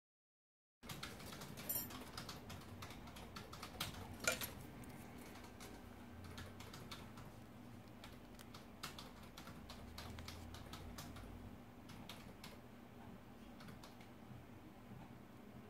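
Rapid, irregular light clicks and taps of small steel hand tools and a diamond ring being handled in a ring holder, over a low steady hum. The sound starts about a second in after dead silence, and the sharpest clicks come about two and four seconds in.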